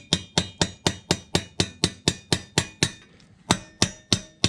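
A hammer, likely a brass one, striking a small socket set over a concrete anchor stud, about four quick blows a second with a short metallic ring after each, and a brief pause about three seconds in. The stud is being driven down its drilled hole in the concrete until it bottoms out.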